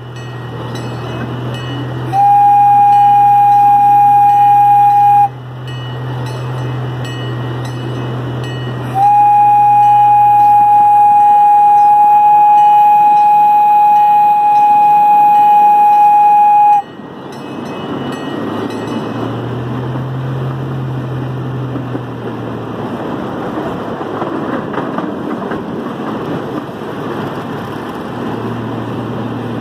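Miniature ride-on train's horn blowing one steady note in two blasts, a short one of about three seconds and then a long one of about eight seconds, sounded for a grade crossing. Under and after the blasts the train's running noise rumbles on as it rolls along the track.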